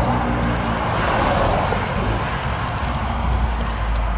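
A motor vehicle passing on the road: a low rumble that swells about a second in and then fades, with a few light clicks partway through.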